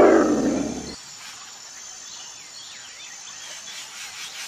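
The end of a cougar's harsh, raspy call, falling in pitch and cutting off about a second in. Then a faint outdoor background with a few faint bird chirps.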